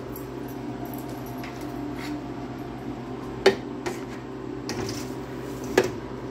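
Metal freeze-dryer trays sliding onto the shelf rack of a home freeze dryer, with sharp metal clacks about three and a half and six seconds in, over a steady machine hum.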